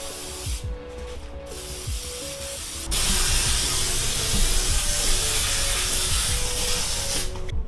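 Aerosol can of citrus paint stripper spraying: a couple of short hisses, then a louder, steady spray lasting about four seconds that stops near the end.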